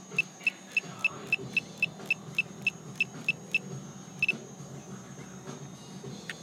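A rapid series of short, high-pitched electronic beeps, about four a second, stopping after about three and a half seconds, with a double beep a little later.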